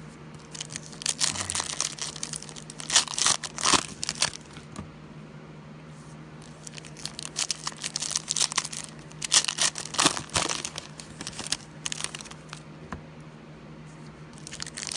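Foil wrappers of Donruss football card packs being torn open and crinkled by hand, in irregular bursts of crackling with a short lull about five seconds in.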